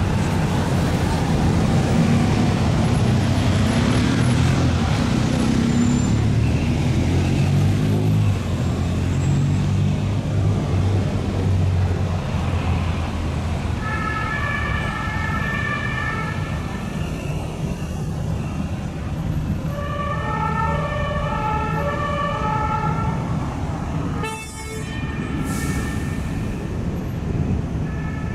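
Heavy city traffic rumbling, then from about halfway an ambulance siren sounding a repeating pattern of steady stepped tones.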